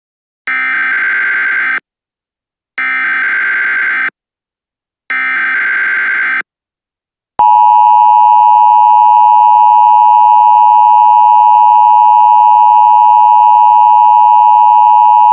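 Emergency Alert System alert: three identical screechy SAME digital header bursts, each about a second and a half long, followed about seven seconds in by the louder EAS attention signal, a steady two-tone alarm that holds without a break.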